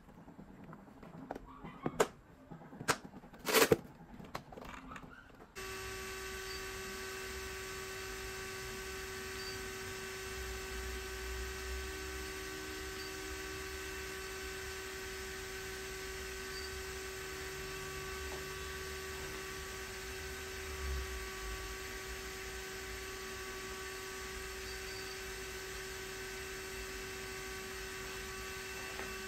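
A few knocks and clicks as a radio-control car is handled on a table, then, after an abrupt change, a steady electrical hum with several fixed whining tones that does not vary.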